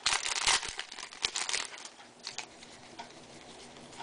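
Foil wrapper of a baseball-card pack crinkling as it is handled and torn open, in quick rustling bursts through the first second and a half, then a brief rustle and quieter handling.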